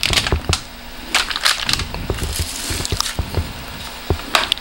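Coffee bag crinkling and rustling, with light knocks and clicks as a cup and a jar of coffee are set down inside a plastic vacuum storage box.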